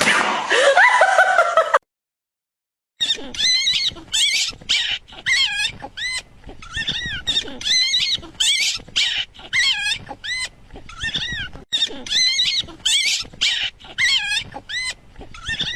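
A small animal making short, high-pitched squeaking calls over and over, about two a second, each rising and falling in pitch. They start after a second of dead silence about two seconds in.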